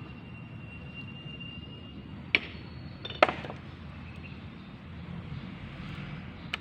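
Two sharp clacks a little under a second apart, the second louder, from flat stone pieces knocking as they are handled and set into wet cement mortar, with a smaller click near the end. A steady low rumble runs underneath.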